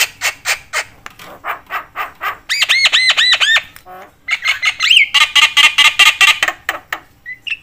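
Javan myna calling in a fast, varied stream. It opens with short harsh squawks at about four or five a second, then gives a run of about six ringing, arched whistles, and after a brief pause a dense buzzing chatter.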